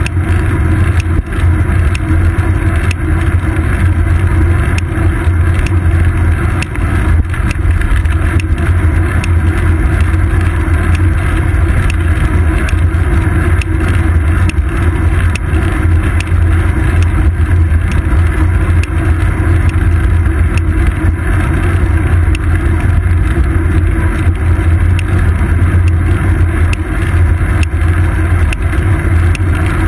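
Steady, loud wind and road rumble on a seat-post-mounted GoPro Hero 2 while riding a road bike, with frequent small ticks and knocks from the bike and road surface.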